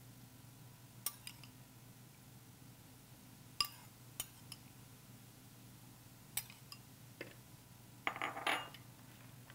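A metal spoon clinks now and then against a small ceramic bowl and a glass mixing bowl as soaked red onion is spooned into a salad. Near the end comes a short spell of scraping and clatter as the salad is tossed with the spoon.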